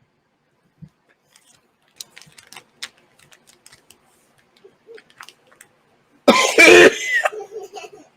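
A man coughing once, loud and harsh, about six seconds in, brought on by eating very sour candy; faint clicks and small handling noises come before it.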